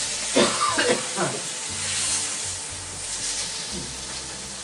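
Sous-vide pork steaks searing in a hot pan: a steady frying sizzle. A few short indistinct voice sounds come in the first second or so.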